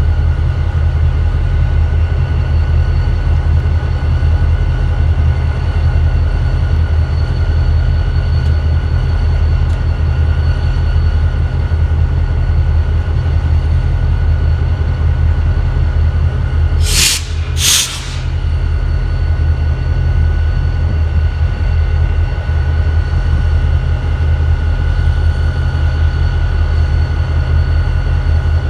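EMD diesel locomotives idling steadily, a deep even engine drone with a faint steady whine above it. About 17 seconds in come two short hisses in quick succession.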